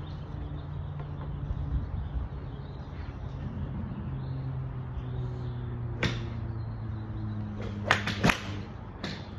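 Sharp cracks of golf irons striking balls off range mats: one about six seconds in, two loud ones close together around eight seconds, and another near the end, over a steady low hum.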